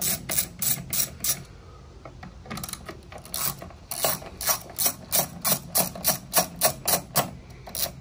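Ratcheting screwdriver with a T25 Torx bit clicking as it backs the cover screws out of a string trimmer's engine housing. Runs of even ratchet clicks, about four a second, are broken by short pauses.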